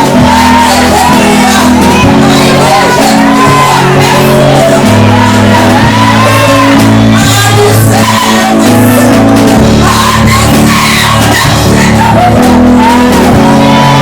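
Loud live worship music: sustained bass and keyboard chords, with voices singing and shouting over them.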